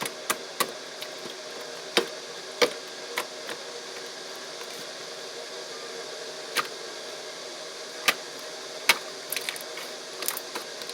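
Slime being worked by hand, giving scattered sharp clicks and pops at irregular intervals, with a small cluster near the end, over a steady background hiss.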